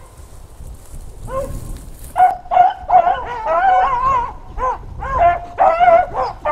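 A pack of beagles baying as they run a rabbit's trail. After a single call the pack opens up about two seconds in, several dogs giving tongue at once in a mix of long bawls and short chops.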